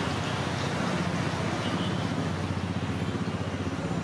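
Batter-coated green chillies (mirchi bajji) frying in a wok of hot oil, a steady sizzle over a steady low rumble.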